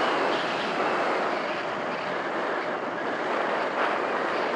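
Steady rush of air and airframe noise picked up by the camera riding on an EasyGlider Pro RC glider in flight, easing slightly about a second in.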